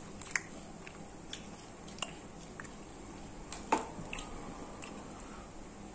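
A person eating and chewing, with a scattering of short sharp clicks and smacks. The loudest comes about three and a half seconds in.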